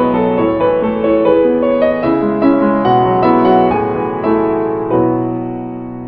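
Background piano music: a gentle melody of struck notes over chords, with a last chord held and fading near the end.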